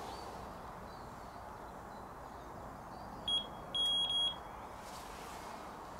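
Electronic carp-fishing bite alarm on a rod pod beeping at a high pitch: one short beep about three seconds in, then a longer beep about half a second later, set off as the angler handles the rod and moves the line.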